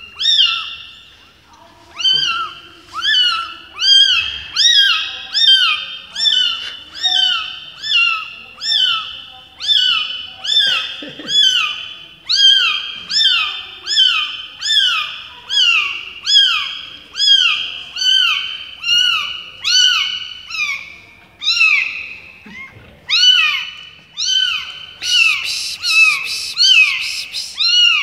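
Newborn kitten mewing over and over, high-pitched cries that each rise and fall, about two a second. A short patch of rustling clicks near the end.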